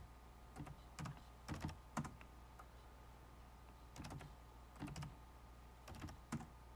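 Faint keystrokes on a computer keyboard as dates are typed in digit by digit. They come in short groups of clicks, with a pause of about two seconds in the middle.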